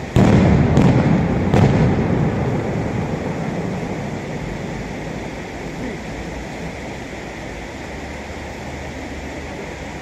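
Aerial firework shells bursting: three loud bangs in the first second and a half, then a low rolling sound that dies away slowly over several seconds.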